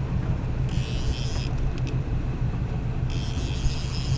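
Boat engine running with a steady low rumble, with two stretches of high hiss, one about a second in and another near the end.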